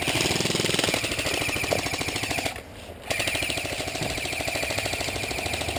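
Airsoft gun firing on full auto in two long rapid bursts, split by a short pause about two and a half seconds in: covering fire while teammates advance.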